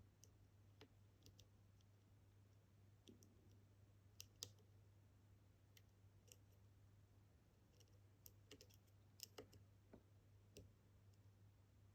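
Faint, scattered clicks of a pick working the pins inside a Kaba experT dimple lock, the picker probing for binding pins; the loudest click comes about four and a half seconds in and a small cluster comes around nine seconds. A faint steady low hum sits under it.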